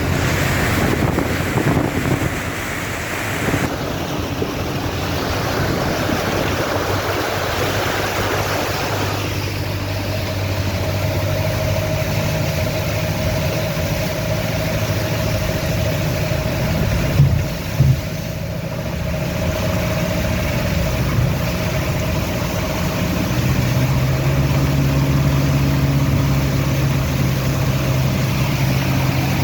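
Toyota Land Cruiser LJ71 engine running steadily as the vehicle drives through floodwater, with a rushing, splashing hiss of water for the first nine seconds or so. After that a steady whine sits over the engine, and two short knocks come just past halfway.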